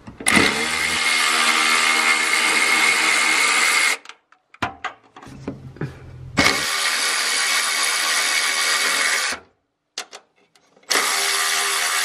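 Snap-on cordless electric ratchet running in three spells of about three seconds each, backing out the bolts of a fuel pump hat on a fuel tank. Between the runs there are a few short clicks and knocks.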